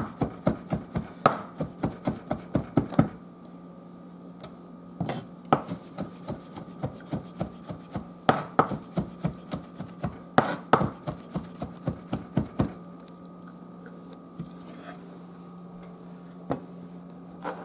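Knife chopping garlic on a cutting board in quick even strokes, about four a second. There are two runs with a pause of about two seconds between them. The chopping stops about thirteen seconds in, leaving a faint steady hum.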